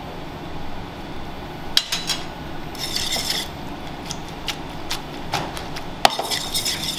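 Metal tongs clicking against a stainless steel sauté pan as pasta is stirred and the pan is shaken and tossed on the hob. Two short rasping scrapes come a few seconds apart, the second starting with the loudest click, over a steady low hum.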